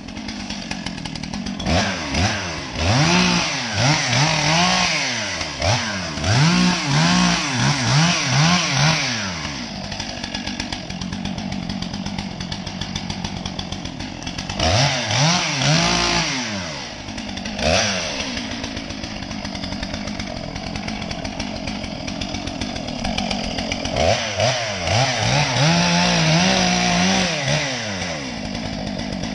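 Chainsaw felling a tree, its engine revved up and down over and over in three spells, at the start, around the middle and near the end, and dropping back to a steadier idle in between.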